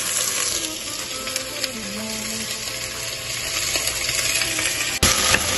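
Chopped onion, carrot and potato frying in hot coconut oil in a pressure cooker pot: a steady sizzle with a few light clinks. The sizzle turns suddenly louder near the end.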